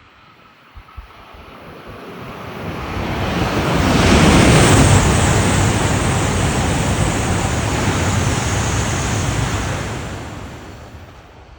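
Coupled Tsubasa and Yamabiko Shinkansen trains passing through the station at speed without stopping: a rushing roar that builds, peaks about four seconds in, holds for several seconds as the long train goes by, then fades away.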